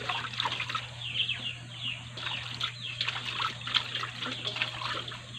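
Water sloshing and trickling in a stainless steel basin as a plucked chicken is washed by hand, with irregular small splashes.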